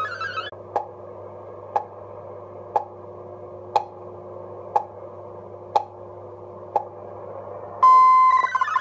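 Shortwave tube receiver playing a VOA Radiogram digital broadcast. The MFSK data tones stop about half a second in. A pause follows, with only receiver noise, a faint steady hum-like tone and a sharp tick about once a second. About a second before the end a loud steady tone sounds, and the warbling MFSK64 data tones start up.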